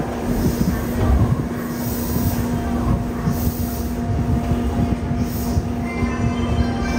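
Yokohama Municipal Subway Blue Line train with a Mitsubishi GTO-VVVF inverter, standing at the platform with a steady electrical hum and a few short air hisses. Near the end the inverter's stepped, rising whine begins as the train starts to pull away.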